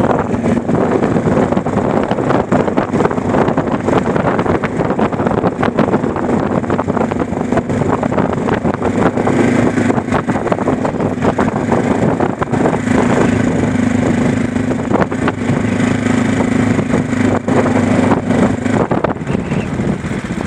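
Vehicle on the move, heard from inside or on board: dense road and wind noise over a steady engine hum, which falls away shortly before the end.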